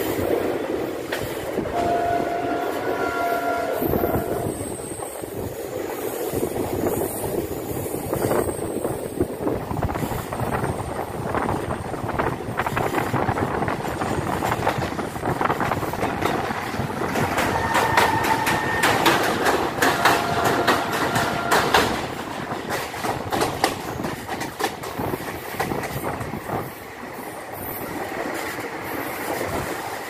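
Passenger train running, its wheels clicking over rail joints, with a horn-like tone held briefly a couple of seconds in and again for a few seconds past the middle.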